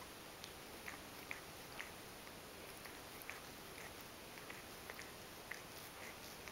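Ragdoll cat grooming its front paw, licking and nibbling it: faint, irregular wet tongue-and-teeth clicks, about one or two a second.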